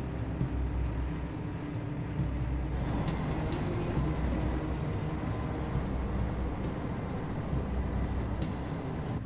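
Convoy of armoured military vehicles driving past: a steady, heavy low engine rumble with a faint scattered clatter.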